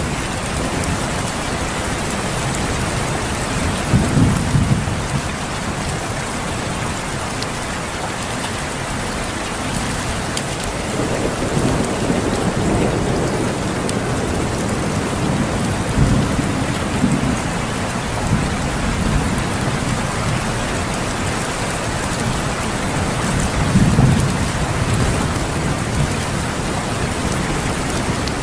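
Steady rain of a rainstorm with rolling thunder: low rumbles swell and fade four times, the loudest a few seconds in and again near the end.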